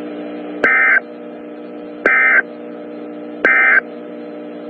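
Emergency Alert System end-of-message signal on NOAA Weather Radio: three short bursts of warbling digital data tones, about 1.4 seconds apart, over a steady radio hum.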